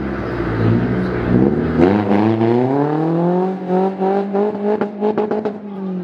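Classic rally car engine accelerating hard on a stage, its pitch climbing for about two seconds and then holding high. A quick run of sharp clicks comes around five seconds in, and the engine eases off near the end.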